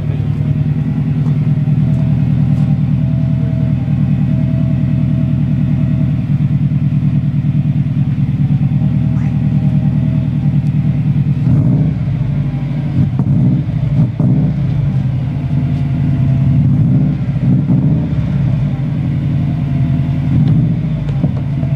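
Subaru Impreza WRX STi's turbocharged flat-four idling, heard at the exhaust tip as a steady, fast-pulsing low rumble. For a few seconds around the middle the note turns uneven, with a few short knocks.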